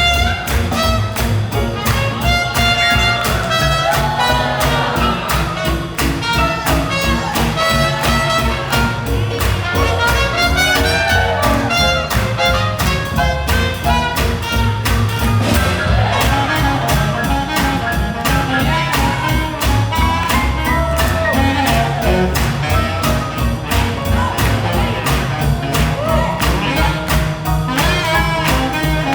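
Swing jazz played by a live band: brass horns over a rhythm section keeping a steady, driving beat.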